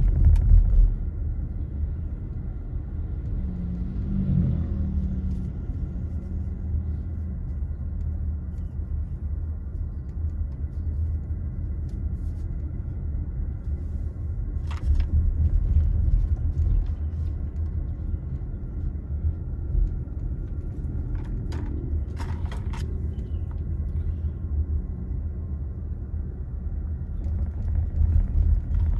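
A car driving on city roads, with a steady low rumble of engine and tyres. A few short clicks come through about halfway in and again a little later.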